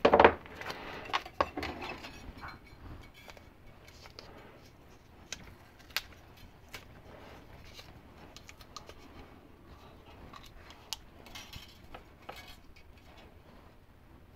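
Handling sounds of a metal micrometer frame and thin stainless steel wire over a plastic tray. A short clatter comes at the start, then scattered light clicks and taps as the wire is twisted through the frame.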